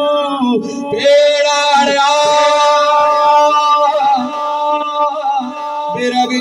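A man singing a naat into a microphone, holding one long note for several seconds from about a second in, with small turns of pitch near its end. A steady low drone sounds underneath.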